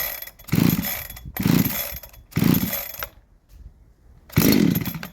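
Husqvarna 372XP clone chainsaw being pull-started: the recoil starter cord is yanked about four times, each pull spinning the two-stroke engine over in a short burst that dies away without the engine catching and running.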